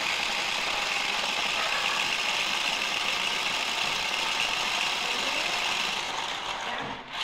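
Light-up toy spinning top whirring as it spins on a tile floor: a steady, hissing whirr that fades near the end.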